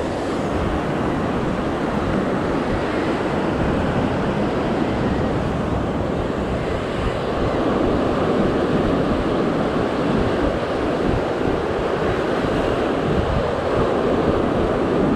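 Ocean surf breaking and washing over a rocky shore in a steady rush, with wind buffeting the microphone.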